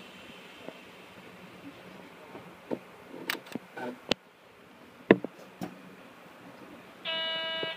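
A stationary train's cab, quiet apart from a few scattered clicks and knocks, then near the end an electronic buzzer sounds once, steady for under a second.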